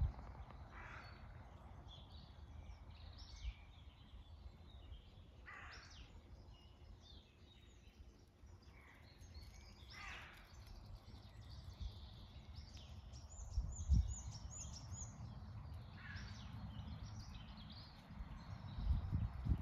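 Scattered bird calls and chirps, with a quick run of calls about two-thirds of the way through, over a low, uneven rumble. Two dull thumps stand out, one about two-thirds through and one near the end.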